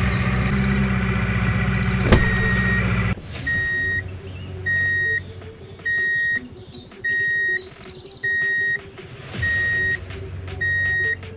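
A toy dump truck's electronic sound effects: a steady engine rumble that cuts off about three seconds in after a click, then seven high reversing beeps about once every 1.2 seconds while the bed tips.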